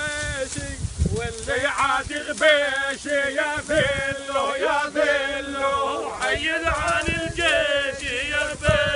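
A group of men chanting a song together, their voices rising and falling in long sustained lines, with scattered low thumps underneath.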